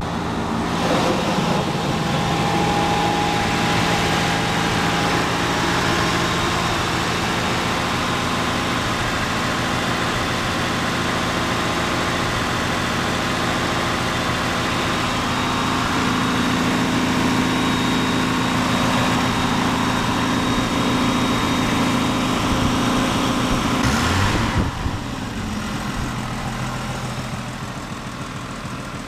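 A 1974 Plymouth Valiant's engine idling steadily while it warms up after a cold start, having sat unstarted for 623 days. Near the end there is a short thump, after which the sound is quieter.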